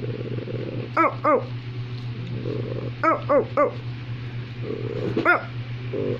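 Barking in short, arched calls: two about a second in, three around three seconds in, and one just after five seconds, over a steady low hum.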